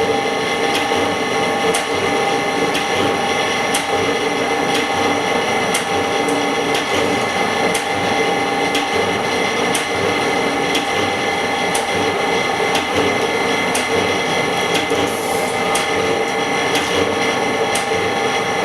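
Phone-screen repair machinery running steadily: a constant hum made of several held tones, with a sharp tick about once a second.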